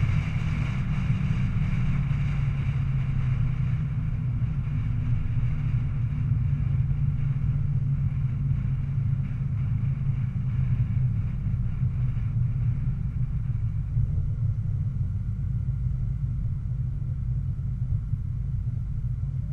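2005 Pontiac GTO's LS2 V8 running steadily at low revs, heard from inside the cabin, with wind and road noise fading over the first few seconds as the car slows.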